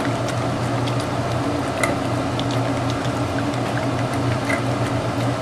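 Pit bull terrier eating, with small wet chewing and licking clicks at irregular intervals, over a steady low hum. For this injured rescued dog, eating is taken as a good sign.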